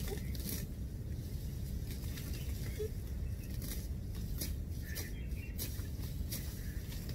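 Tall dry grass and weeds rustling and crackling in short irregular bursts as they are pulled up and bundled by hand, over a steady low rumble.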